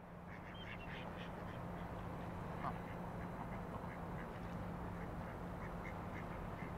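Waterfowl calling in short, high, quick notes, clustered about half a second in and again near the end, over a steady low hum.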